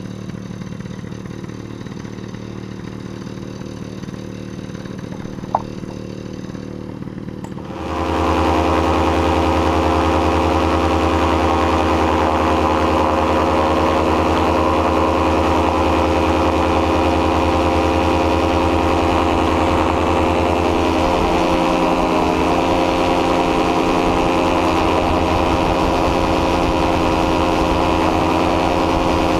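Ultralight trike's engine and pusher propeller running steadily at low throttle, then opened up about eight seconds in and held at a steady, much louder full-power run for the takeoff.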